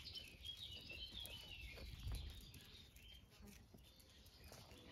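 Faint birds chirping in the background, the short calls clustered in the first second or so, then near silence.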